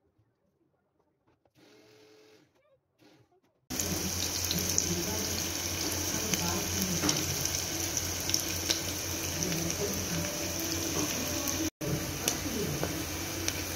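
Near silence for about the first three and a half seconds. Then chopped onion starts sizzling in hot oil in an aluminium pressure cooker: a steady frying hiss with small crackles and pops, over a low steady hum, cutting out for an instant near the end.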